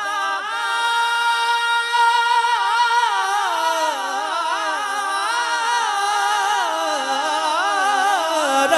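Man singing a naat unaccompanied into a microphone: one long drawn-out phrase, held steady for about two seconds and then winding through wavering melismatic ornaments.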